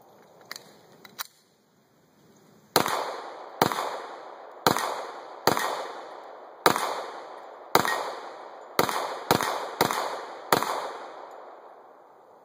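A Glock 21 .45 ACP pistol firing a string of about ten shots, roughly one a second at first and quickening to about two a second near the end, each shot followed by a decaying echo.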